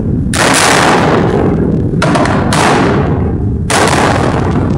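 Blasting charges detonating one after another in a metro tunnel being driven: four sharp blasts, two of them about half a second apart, each trailing off in a long echo through the tunnel over a continuous deep rumble.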